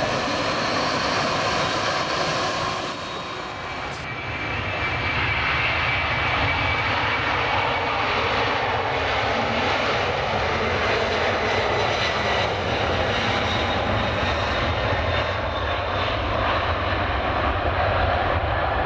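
Boeing 747-400's jet engines running during its take-off roll, a steady loud roar with a brief dip about three seconds in. The aircraft lifts off near the end.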